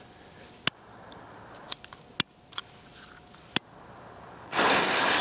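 A few sharp clicks or small pops spread across the first few seconds, then a loud steady hiss that starts suddenly about four and a half seconds in.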